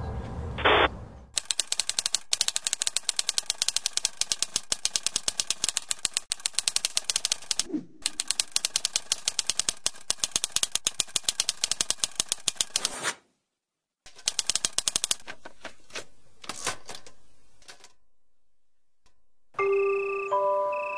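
Typewriter keys clattering in a fast, even run of strikes, pausing briefly about eight seconds in, stopping for a second near thirteen seconds, then a short second run and a few scattered strikes. A few soft musical notes begin near the end.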